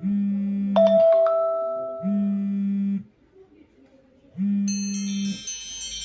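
iPhone 5 ringtones playing through the phone's speaker. A struck, chime-like note rings out and decays about a second in, and the tone stops about three seconds in. After a short pause a different ringtone starts with high bell-like notes. Beneath them a low buzz sounds for about a second at a time, every two seconds.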